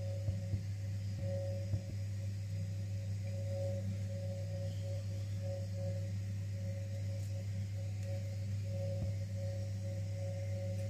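Soft background music of sustained, droning tones with a gently pulsing higher note. A few light taps come in the first two seconds.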